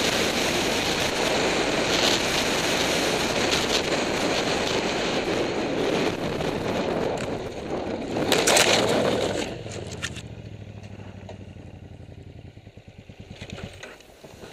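Helmet-camera sound of a KTM adventure motorcycle ridden fast on a gravel road, with heavy wind noise over the engine. About eight seconds in there is a loud scraping burst as the bike is deliberately laid down and slides on the gravel. After that the engine is heard running on quietly and evenly.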